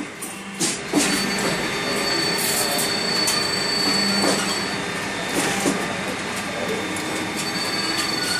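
Air filter frame roll forming machine running: a steady mechanical noise with a thin high whine, broken by a few short clanks.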